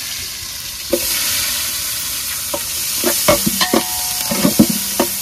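Sliced onions and curry leaves sizzling in hot coconut oil in a large aluminium pot. From about three seconds in, a metal ladle stirring them clinks and scrapes against the pot.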